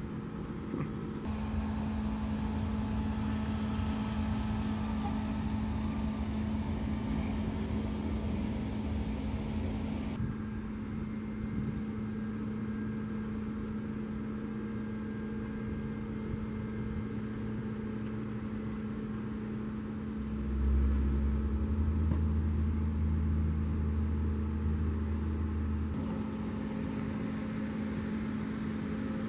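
A steady mechanical hum with a low rumble under it; the rumble swells louder about twenty seconds in and drops back some five seconds later.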